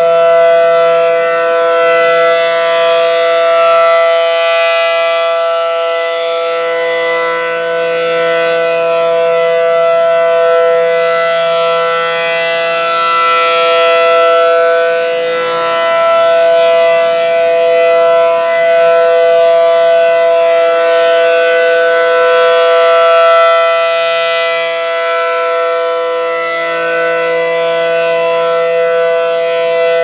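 ACA Allertor 125 outdoor warning siren sounding its steady alert signal: a loud, unwavering chord-like tone that holds one pitch. It swells and fades gently as the siren's horn rotates.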